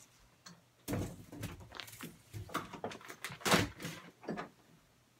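Scattered rustles and soft knocks of a person moving about and handling things, several irregular sounds with the loudest about three and a half seconds in.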